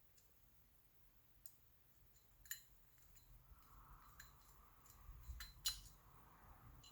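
Faint small metallic clicks and clinks of small screws being started by hand into a Bosch warm-up regulator's bottom plate, with two sharper clicks about two and a half and five and a half seconds in.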